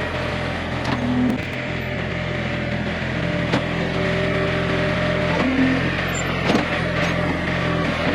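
John Deere 110 garden tractor's engine running steadily, with scattered clicks and knocks from the machine at work.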